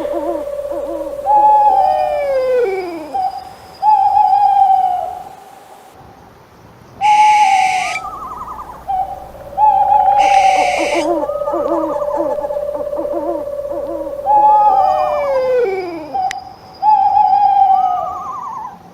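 An owl hooting over and over, with held notes and calls that slide down in pitch. Two short, harsher, higher calls come in near the middle, and the whole sequence repeats about every nine seconds.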